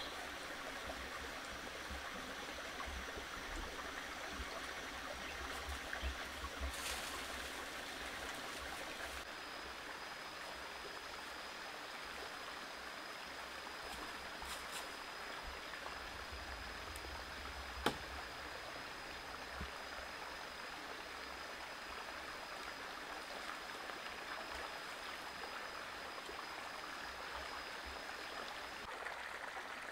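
Steady rushing of a shallow rocky stream. A thin, steady high whine joins it about a third of the way in and stops near the end, and there is a single sharp click a little past the middle.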